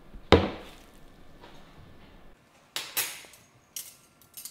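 Dishes and utensils knocking and clinking: one sharp knock just after the start, then a few lighter clinks near the end.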